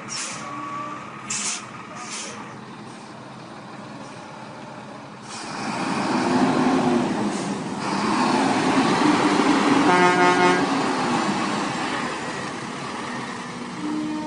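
Heavy truck: a few short hisses of air in the first two seconds, then the engine working hard from about five seconds in, rising and falling in pitch, with a brief horn toot about ten seconds in.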